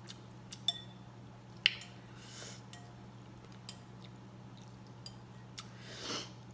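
Close-up eating sounds: scattered small wet clicks and smacks of chewing, with two soft rushes of breath or slurping, over a steady low hum.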